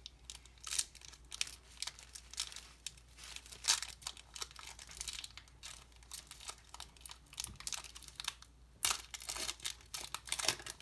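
Plastic wrapper of a football trading-card pack being torn open and crinkled, with irregular crackling throughout.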